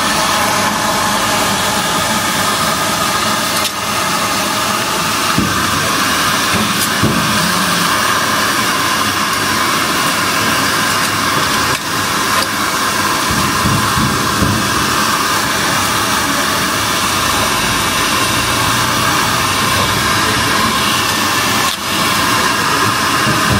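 Handheld hair dryer running steadily: a constant rush of air with a motor whine, dipping briefly in level a few times. It is blowing hot air to soften the glue of a label being peeled off stainless steel.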